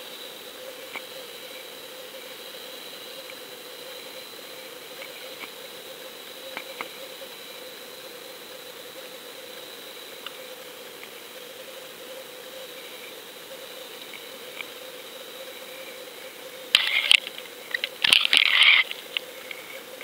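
Underwater camera recording a steady hiss with a faint hum and a few light clicks. A cluster of loud clattering knocks comes about three seconds before the end.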